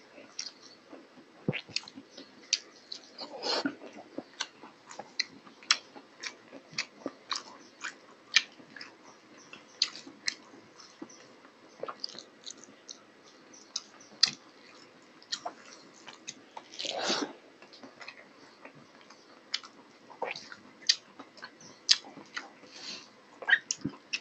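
A person eating rice and curry by hand, close-miked: chewing with many irregular wet mouth clicks and lip smacks, and two longer, louder noisy sounds, about three and seventeen seconds in.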